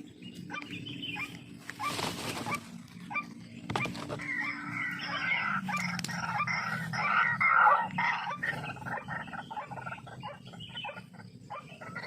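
Bird calls: a dense run of loud, repeated calls from about four to nine seconds in, over a low steady hum, with a brief rustle about two seconds in.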